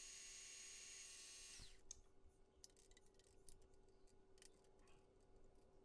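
Bridgeport milling machine's spindle running faintly with a thin high whine, which cuts off about a second and a half in. Then faint scattered clicks and taps as the drill chuck is handled.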